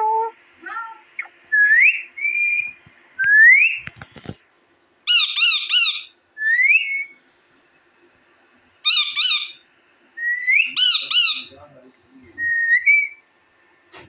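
Indian ringneck parakeets calling: several clear rising whistles alternating with three loud, harsh screeches, with short pauses between calls. A single sharp click comes about four seconds in.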